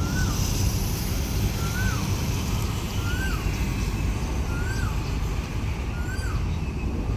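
Diesel engine of a railway track-maintenance vehicle running steadily with a low drone that eases slightly about two seconds in. Over it, a bird repeats a short up-and-down whistle about every second and a half.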